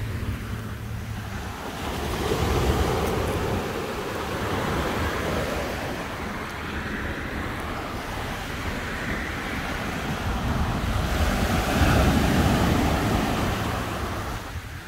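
Small ocean waves breaking and washing up a sandy beach, swelling louder about two seconds in and again near the end, with wind rumbling on the microphone.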